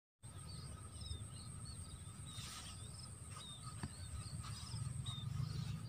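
Rural field ambience: small birds chirping in short calls over and over, with a faint steady high-pitched tone and a low rumble of wind.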